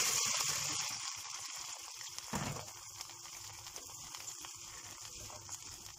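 Boiling vinegar, oil and water brine in a stainless steel pot bubbling as a heap of chopped green peppers is tipped in. The bubbling dies down over the first two seconds or so, then a wooden spoon faintly stirs the peppers.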